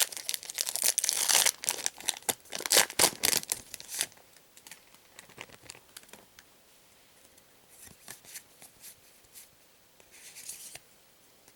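A foil Yu-Gi-Oh booster pack wrapper crinkling and being torn open in quick rips for about four seconds. Faint clicks and rustles of handling follow, then another short crinkle near the end.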